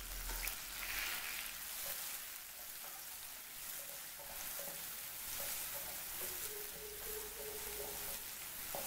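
Soaked, chopped nuts and dry dates sizzling steadily in hot ghee in a nonstick pan while a spatula stirs them, roasting them for sheer khurma.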